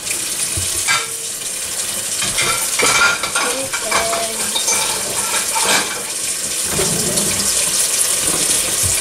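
Kitchen clatter: dishes and utensils clinking and knocking now and then over a steady hiss.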